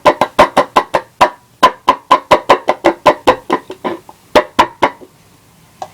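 Paper-cup noisemaker (a cluck cup): a cord pulled through a hole in the cup's bottom and gripped between fingernails gives a fast series of loud, chicken-like clucks, about four or five a second, stopping about five seconds in.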